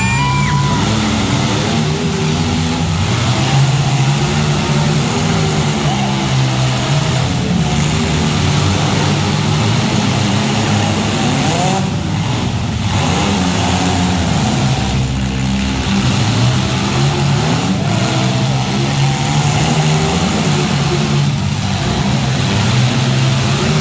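Compact-car demolition derby engines running hard and revving, their pitch rising and falling unevenly as the cars accelerate.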